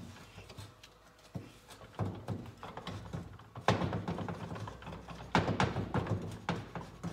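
Steel transmission parts (gear shafts, shift drum and shift forks) clinking and knocking against each other and the aluminium crankcase as they are worked out of a Kawasaki KE100 engine case together. Quiet for the first second or two, then several spells of clatter.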